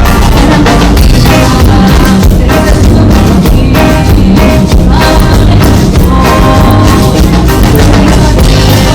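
Loud band music driven by a drum kit with a steady beat, playing throughout.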